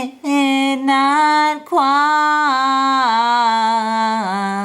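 A solo voice singing slowly with no accompaniment, drawing out the word 'midnight' in long held notes, with short breaths between phrases and the pitch stepping down twice near the end.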